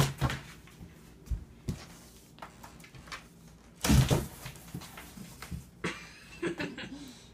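Cardboard box knocked and bumped about by a cat: a string of thuds and light knocks, with a louder thump about four seconds in.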